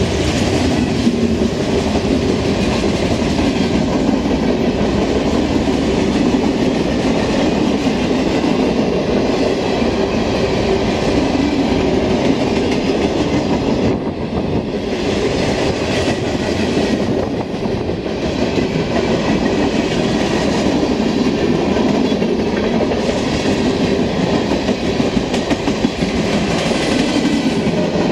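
Freight cars of a mixed freight train (covered hoppers, boxcars and flatcars) rolling past close by: a steady, loud noise of steel wheels on the rails and rattling cars.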